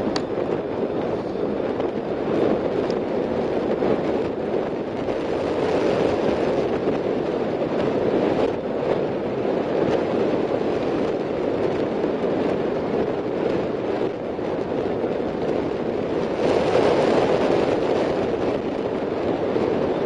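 Wind rushing over the microphone with tyre noise from a bicycle rolling along a paved street: a steady rush with no engine note, swelling for a couple of seconds near the end.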